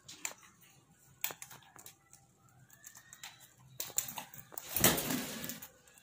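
Alexandrine parakeets moving about a wire cage: scattered clicks and scratches, a faint rising note near the middle, and a louder rustling burst about five seconds in.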